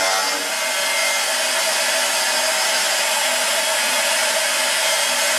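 CNCrouterparts 4896 router spindle running an end mill that cuts a slot in aluminium plate: a steady high whine with the hiss of the bit cutting, the spindle holding speed without bogging down at 1 mm depth of cut and 600 mm/min.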